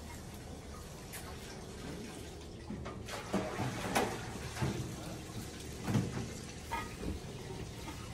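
Stiff artificial flowers rustling as a cat noses and brushes through them, a few short rustles between about three and seven seconds in, over a steady low background noise.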